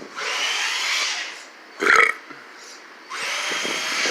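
RC truck's motor and drivetrain whining in two bursts of throttle, with a short sharp squeak about two seconds in.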